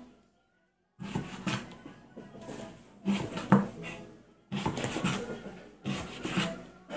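Chef's knife slicing raw pork on a plastic cutting board, with irregular knocks of the blade against the board. The sound drops out completely for about the first second.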